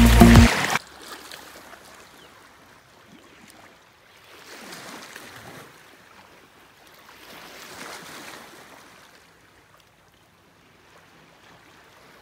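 Background music cuts off under a second in. After that there is a faint wash of small waves lapping in the shallows, swelling twice.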